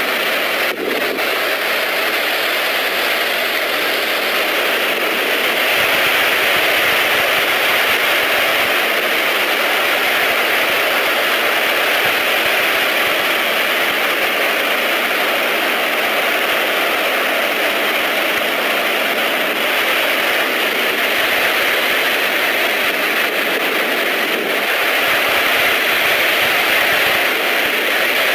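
Rough surf breaking and washing onto the shore: a steady, loud rush of churning waves thick with plastic litter.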